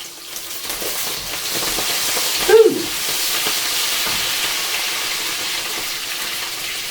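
Vegetables sizzling in a hot pan as they are stir-fried, a steady hiss that builds over the first second. About two and a half seconds in comes a brief squeak that falls in pitch.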